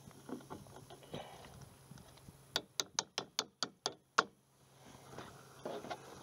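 A quick run of about eight sharp mechanical clicks, roughly five a second, lasting under two seconds, from hand work on a cart wheel's bracket.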